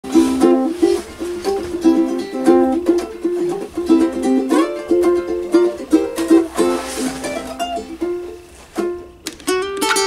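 Ukulele strummed in a steady rhythm of chords. The strumming eases off near the end and gives way to a few single plucked notes.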